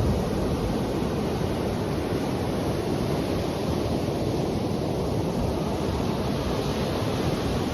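Waves washing steadily, with wind rumbling on the microphone.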